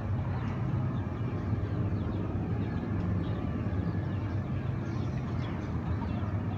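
Boat engines running steadily, heard as a continuous low rumble.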